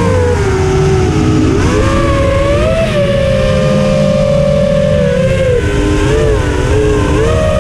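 Whine of a 230 mm FPV racing quadcopter's four brushless motors (T-Motor F40 Pro II 1600kv) spinning 6-inch three-blade props, picked up on board. The pitch falls as throttle comes off at the start, rises again about two seconds in, holds for a few seconds, dips, then climbs near the end. The motors sit at slightly different pitches, with a rough rumble of wind underneath.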